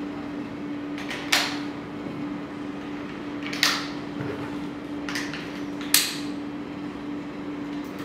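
Zeapon Revolver quick releases snapping and locking as a camera slider and tripod head are mounted on a tripod: four sharp clicks spaced a second or two apart, the loudest about six seconds in, over a steady low hum.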